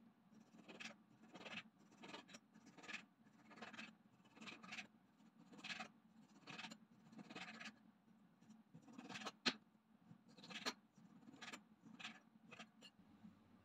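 Kitchen knife slicing raw meat on a cutting board: faint, regular cutting strokes, about two a second, with one sharper knock of the blade on the board about halfway through.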